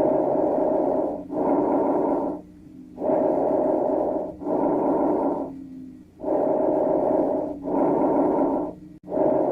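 Recorded lung sounds: breath noise with a hissing quality, inhaling then exhaling in pairs, one breath cycle about every three seconds.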